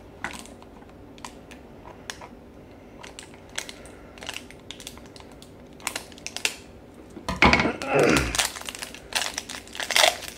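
Scattered light clicks and taps of small plastic being handled, then louder crinkling and crushing of a toy blind-bag wrapper being opened from about seven seconds in.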